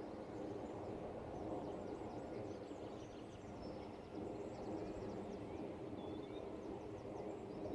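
Small songbirds chirping faintly over a steady low rumble of outdoor background noise.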